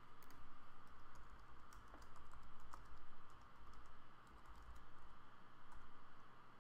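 Typing on a computer keyboard: quick runs of light keystrokes with short pauses between them.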